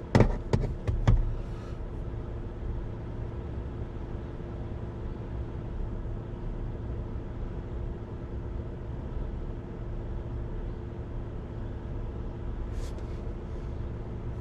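Pickup truck engine running steadily, a low even hum, with a few sharp knocks in the first second.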